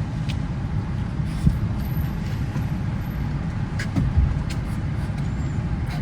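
Steady low vehicle rumble, with a few short knocks about one and a half and four seconds in.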